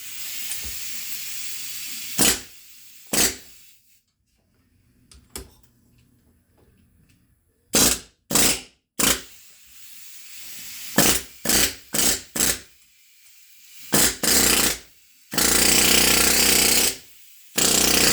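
Pneumatic rivet gun with a homemade bending tip hammering in short trigger bursts, about a dozen of them, bending tabs over on a workpiece, with one longer run of about a second and a half near the end. It opens with about two seconds of steadier, quieter noise.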